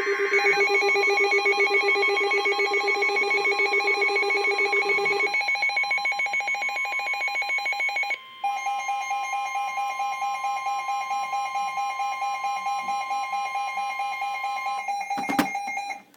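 Emergency Alert System alert: the tail of the screeching digital header burst, then the attention signal, a loud steady chord of alert tones with a fast warble. The tones shift about a third of the way in, break off briefly about halfway, and stop with a click just before the end.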